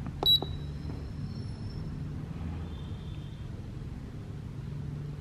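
Handheld ECU flasher giving one short, high electronic beep at a button press about a quarter of a second in, over a steady low hum.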